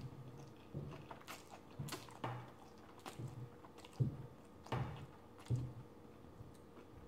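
Close-up eating sounds of a person slurping and chewing garlic noodles: a string of short wet mouth sounds, several a few seconds apart, dying down after about five and a half seconds.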